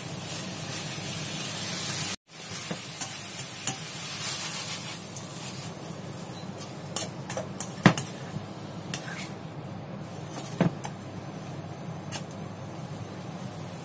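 Cauliflower and chicken strips sizzling in a steel wok as a spatula stirs and tosses them, the cauliflower nearly cooked through. Sharp clicks of the spatula against the wok come here and there, loudest about eight seconds in and again near eleven.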